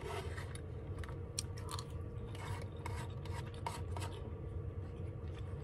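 Plastic spoon scraping and tapping in a paper bowl in short strokes while food is scooped and eaten, over a steady low hum.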